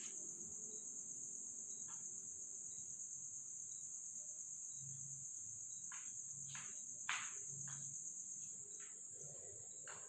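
Faint steady high-pitched chirring of crickets, with scattered soft clicks, one louder click about seven seconds in.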